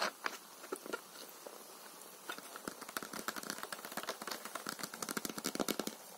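Fingernails tapping and scratching on a plastic soda bottle and its label, heard as a quick run of small clicks and crackles. A few scattered clicks come first, then the run grows dense and louder after about two seconds.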